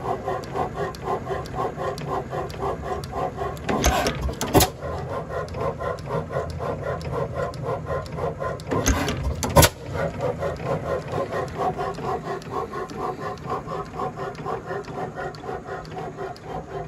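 1903 Columbus 8 hp camstopper hit-and-miss engine running, its valve gear and governor making a rapid, even clatter while it coasts. Sharp bangs of firing strokes come in pairs about four seconds in and again about nine seconds in.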